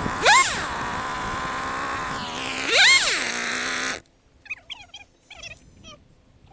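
Two-stroke chainsaw revving up twice, running steadily between the revs, then cutting off abruptly about four seconds in. Faint short chirps follow.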